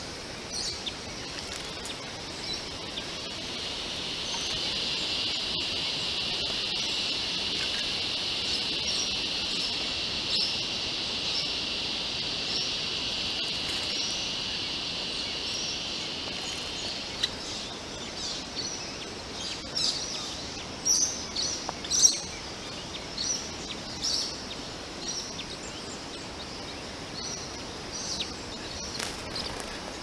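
Small birds chirping, with a busy run of short, high calls in the second half. A steady high buzz runs under the first half and stops abruptly about halfway through.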